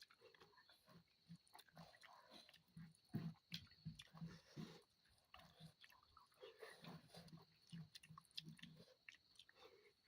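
Faint, irregular chewing of cooked snails close to the microphone, with small mouth clicks.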